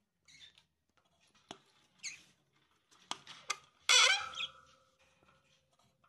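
Lovebirds making short squeaky chirps, with sharp clicks and knocks from the wooden nest box; the loudest is a shrill squawk about four seconds in.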